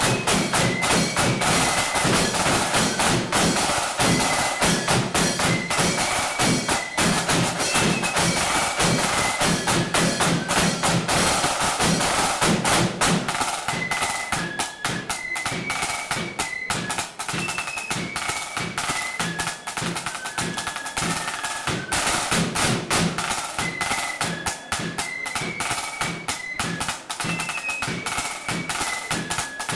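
Marching flute band playing a tune: flutes carry a high melody over fast, continuous drumming. The band gets a little quieter about halfway through.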